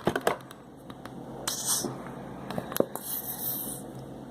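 Liquid silicone glue being stirred in a container with a utensil: scattered clicks and scrapes, with two short scratchy, hissing passes about a second and a half in and again around three seconds in.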